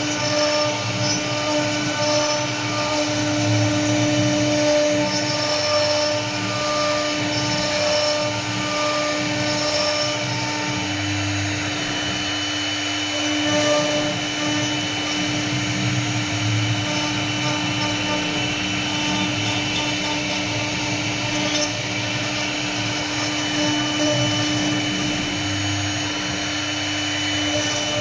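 CNC wood router running: a steady spindle whine, with a rougher cutting noise underneath that swells and fades every few seconds as the bit carves the wood.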